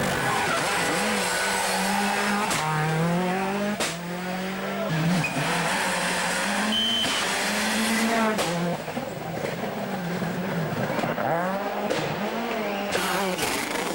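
Turbocharged four-cylinder World Rally Car engine revving hard on a rally stage, its pitch climbing and dropping several times through gear changes, with short sharp cracks and some tyre squeal.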